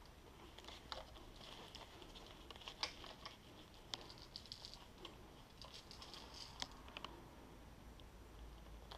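Near silence with faint, irregular small clicks and ticks scattered throughout, a few of them a little sharper around the middle.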